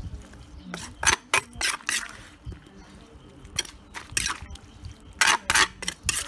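A spoon scraping and tossing papaya salad around a large mortar, in three runs of three or four quick scrapes.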